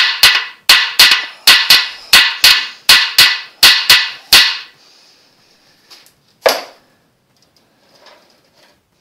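Ball-pein hammer striking a seized, broken bolt in a Ford flathead V8's cast-iron block, metal on metal, to shock it loose. A rapid run of blows, about three a second, each ringing briefly, for the first four and a half seconds, then one more blow about six and a half seconds in.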